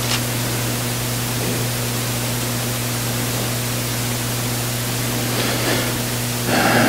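Steady hiss with a low electrical hum underneath: the recording's noise floor while no one speaks.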